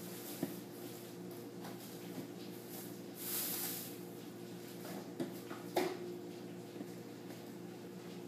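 Groceries being handled and put away: a brief rustle about three seconds in and a few light knocks and clicks, over a steady low hum.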